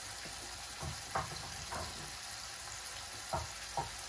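Ground kefta meat frying in a pan with a steady sizzle, while a spoon stirs and scrapes it against the pan a few times.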